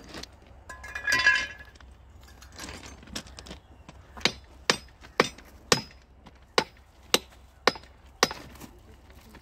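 Small hand hammer striking steel at a rail joint: a few light knocks, then from about four seconds in roughly eight sharp metallic taps about two a second. It is lining up the rail ends before thermite welding.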